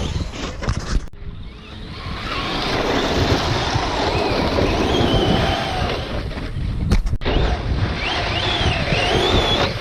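Electric RC truck motors whining up and down with throttle, over wind noise on the microphone. The sound breaks off sharply about a second in and again about seven seconds in.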